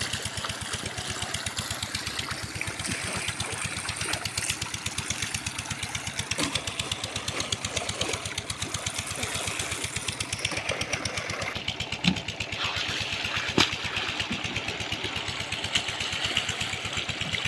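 Small engine of an irrigation pump set running steadily with an even, rapid pulse, with water gushing from a lay-flat pipe. Two sharp knocks come in the second half.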